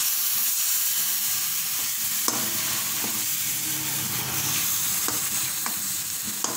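Tomato paste sizzling in hot oil as it is stirred into frying masala in a non-stick kadai with a perforated steel skimmer spoon. A steady sizzle runs throughout, with a few clicks of the spoon against the pan.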